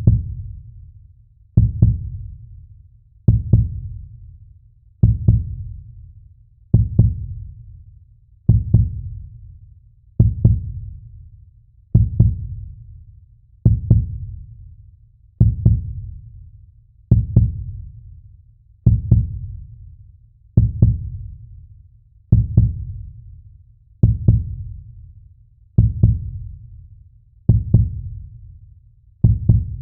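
Slow, steady heartbeat: a low double thump (lub-dub) repeating evenly about every 1.7 seconds, each beat fading quickly.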